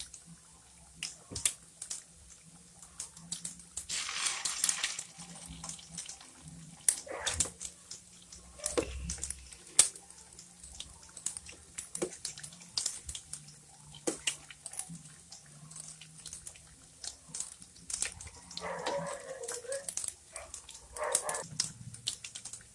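Pork meatballs deep-frying in a wok of hot oil, the oil crackling with many sharp pops and a burst of sizzling about four seconds in. There is a short animal call, like a dog's, about nineteen seconds in.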